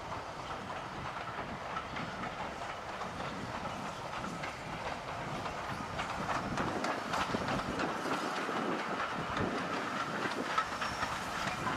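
Train hauled by GER Y14 0-6-0 steam locomotive No. 564 running on the line, its wheels clicking over the rail joints, a little louder from about halfway.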